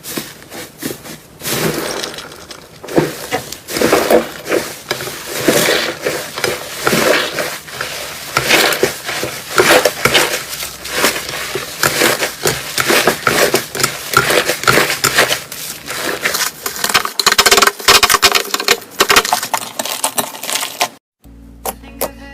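Foaming slime being squeezed and worked in the hands, crackling with dense, rapid popping of its bubbles. It cuts off sharply near the end, and plucked guitar music begins.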